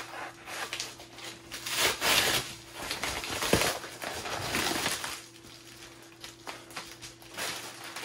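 A yellow padded paper mailer being torn open and handled, with crinkling and rustling of paper and plastic in several louder bursts during the first five seconds, then quieter rustling of the plastic bag inside.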